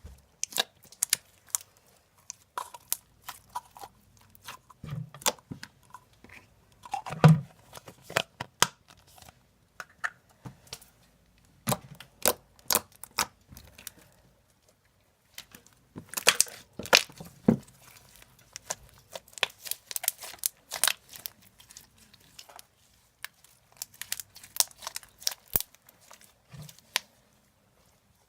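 Slime being squished and stretched by hand, giving irregular crackling and popping clicks in clusters.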